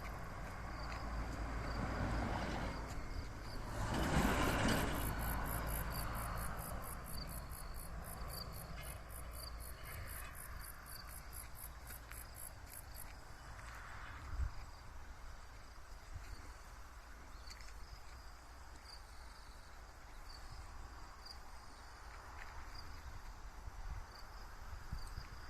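Insects chirping in a steady repeating rhythm, joined by a faster, higher pulsing insect call from about four to thirteen seconds in. About four seconds in, a brief swell of rushing noise with a low rumble is the loudest sound, and a single knock comes near the middle.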